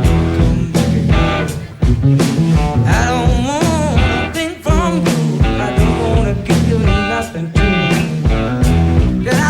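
Rock song with a steady beat, guitar and a singing voice.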